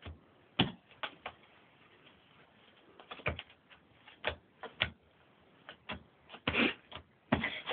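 Playing cards laid down one at a time during a game of snap: light, irregular taps and clicks, with a couple of longer scuffing sounds near the end.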